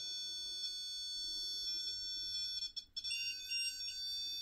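Electronic EMF detectors used for ghost hunting sounding their alarms together, as several steady high-pitched tones. The tones cut out briefly about three seconds in, then a few quick beeps follow.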